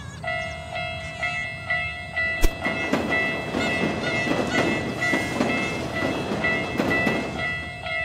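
Japanese railroad-crossing alarm ringing with about two electronic dings a second. About two and a half seconds in, a single sharp knock is heard, and then a train passes with its wheels clattering over the rails.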